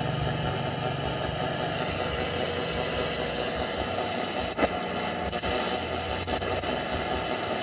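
Radio cassette player switched on and hissing with static, picking up no station because its antenna is broken. One sharp click about four and a half seconds in.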